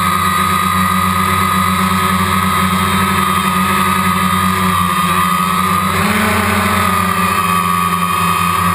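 DJI Phantom quadcopter's motors and propellers running in flight, a loud steady whine and hum, heard muffled through the GoPro's waterproof case. The pitch steps up slightly about six seconds in as the drone moves off.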